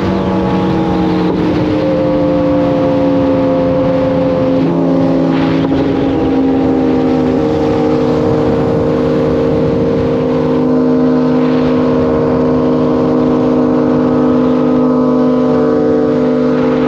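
Kawasaki inline-four sportbike engine running on the road; its pitch eases down over the first several seconds and then holds steady at a cruise.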